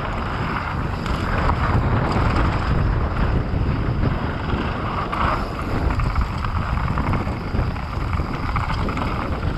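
Wind rushing over the microphone of a mountain bike descending a bike-park trail at speed, with a steady low rumble from the rolling bike and trail.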